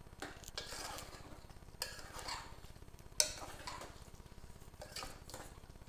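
Stirring masala into squid and drumsticks in a pressure cooker pot: several short scrapes and knocks of the stirring utensil against the pot, the loudest about three seconds in.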